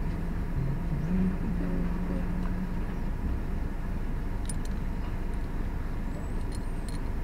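Steady low rumble of an idling car. A low hum runs through the first few seconds, and a few faint clicks come in the second half.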